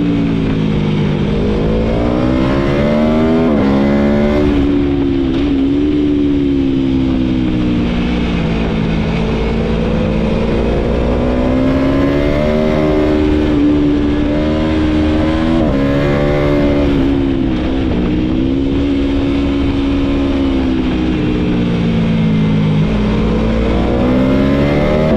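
Aprilia Tuono V4's V4 engine heard onboard while riding hard, the revs climbing and falling again and again with several quick drops in pitch where it shifts gear.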